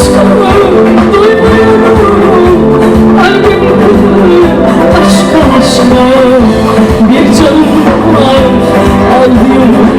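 Live Turkish pop music played loud by a band, with a woman singing over it.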